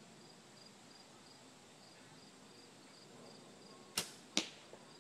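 A Parker compound bow firing: a sharp snap of the string on release about four seconds in, then a second, quieter crack less than half a second later as the arrow strikes the target. Crickets chirp faintly throughout.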